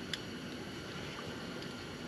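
Steady background hiss with one light, sharp click just after the start and a few faint ticks: small metal parts and hand tools being handled on a hydraulic drive motor's valve block.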